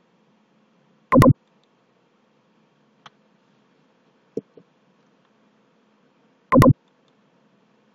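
Computer keyboard and mouse clicks: two loud, short clicks about a second in and near the end, with a few faint ticks between, over a faint steady hum.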